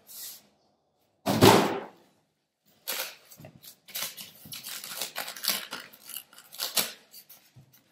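A single heavy thump about a second and a half in as a cardboard box or the packed mixer is set down on the table, then a long run of irregular crackling, creaking and rustling as the foam packing and its wrapping are handled.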